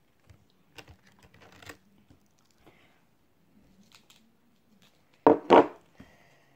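Light rustling and tearing of food and wrapping being handled, then two loud, short crackles a moment apart about five seconds in.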